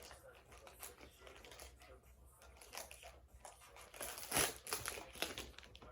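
Faint crinkling of the cellophane wrapper on a cello pack of trading cards as it is handled, with a louder rustle about four seconds in.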